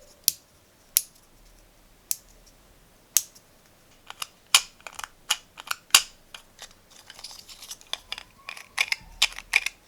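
Hand-worked 3D-printed fidget toy clicking: a run of sharp clicks, a few spaced out at first, then coming quicker and more irregular in the second half.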